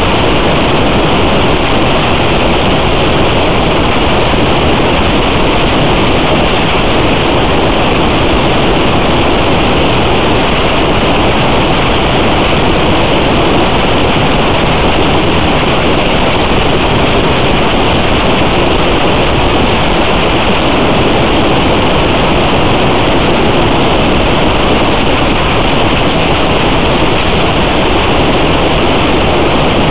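Steady loud hiss of static, even and unchanging, with no motor tone in it: the noise of an analog FPV video link's audio channel.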